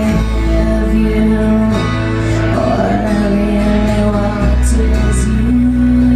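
Live band music: strummed acoustic guitar and electric guitar over a bass line, the notes held and changing every second or so.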